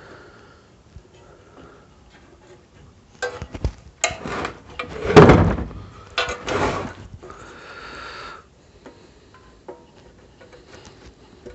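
Hands working on a Honda EG1400 generator with its engine off: a run of knocks, clicks and clatter, the loudest knock about five seconds in, then a scrape lasting about a second.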